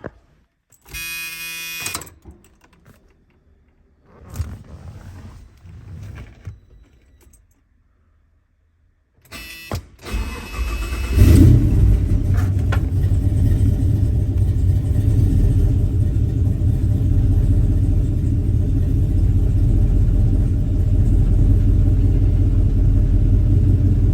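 LS V8 engine cranked and started about ten seconds in, catching with a loud burst and then running steadily at idle: the first start after wiring the alternator, to check that it charges. A short buzzing tone sounds about a second in.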